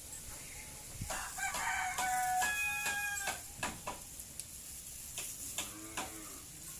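A rooster crowing once, a held call of about two seconds starting about a second in, with sharp clicks scattered around it.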